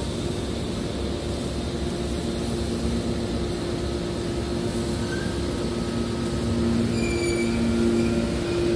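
Hydraulic scrap metal baler running, a steady machine hum with two held tones that grows a little louder near the end. Faint short high squeals come in about seven seconds in.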